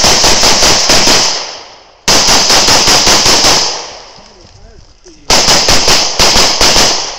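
Open-division competition pistol firing three strings of fast shots, each lasting about a second and a half with pauses between, each string trailing off in echo.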